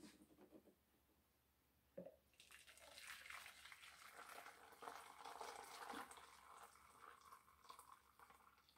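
Just-boiled water poured from an electric kettle into a plastic measuring cup: a light knock about two seconds in, then a faint, steady splashing stream filling the cup until near the end.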